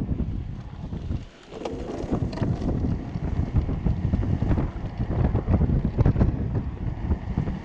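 Wind buffeting the microphone as a homemade electric go-kart rolls along a paved path, a gusty low rumble that drops away briefly about a second in.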